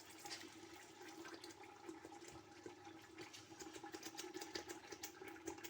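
Liquid tomatoes frying with onions in hot groundnut oil: a faint sizzle full of irregular small crackles and spatters, over a steady low hum. The oil is hot enough that the tomatoes splash out of the pot.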